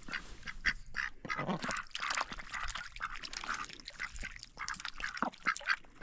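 A group of domestic ducks quacking, with many short calls following one another quickly and overlapping.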